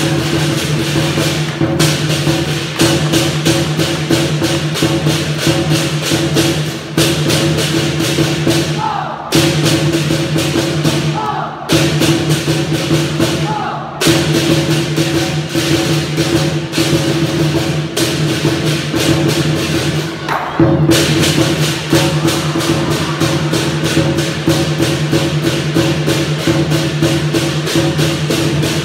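Chinese war drums and cymbals playing lion and dragon dance music, struck in a fast, dense, unbroken rhythm under a steady ringing tone. The beat drops out briefly a few times.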